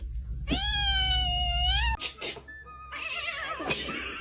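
A domestic cat's long, drawn-out meow, rising in pitch and then held for about a second and a half, starting about half a second in. It cuts off abruptly, and fainter wavering cries follow.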